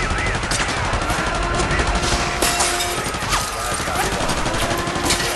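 Sound-effect battle gunfire: dense, continuous shooting with rapid machine-gun bursts among scattered single shots, and a steady low tone that comes and goes underneath.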